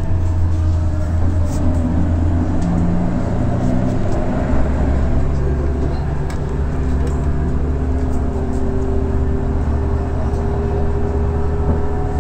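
Scania DC12 12-litre diesel engine of a coach idling steadily, a deep even hum whose low note shifts slightly about four and a half seconds in.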